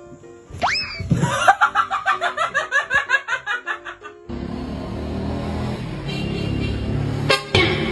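Music with laughter: a quick rising glide, then about three seconds of rapid pitched laughing pulses, about five a second, followed by a steadier noisy stretch.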